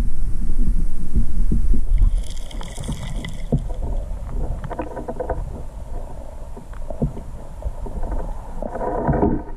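Stream current heard underwater through a submerged camera: a low rumble with small ticks and knocks of gravel, louder for the first two seconds and then quieter. A few short pitched squeaks come in around two seconds in, around five seconds, and near the end.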